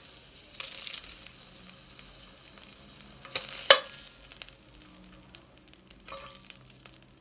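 Steak sizzling in oil and butter in a skillet, a steady high hiss. A few sharp knocks cut through it, the loudest a pair about three and a half seconds in.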